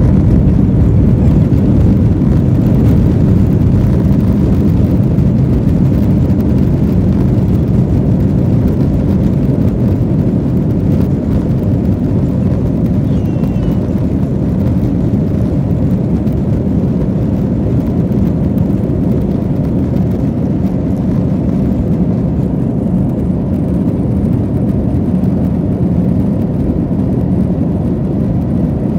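Airbus A321 jet engines running at takeoff thrust during the takeoff roll, heard from inside the passenger cabin as a loud, steady, deep roar.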